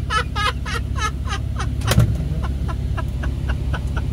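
A man laughing hard in a fast run of cackles, about four or five a second, trailing off into fainter ones after about two seconds. Beneath it, heard inside the cabin, is the steady low drone of a 2012 Jeep Wrangler JKU's 3.6-litre V6 through a custom Flowmaster exhaust with no catalytic converters or resonators, which the occupants think sounds so bad.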